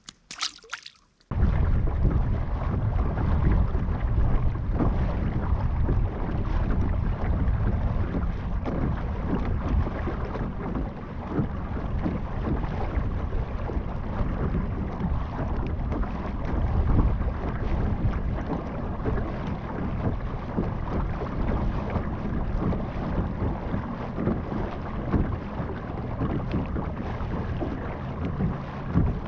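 A brief splash, then from about a second in a motorized sit-on-top kayak under way: a loud, steady rush of wind buffeting the microphone and water running along the hull.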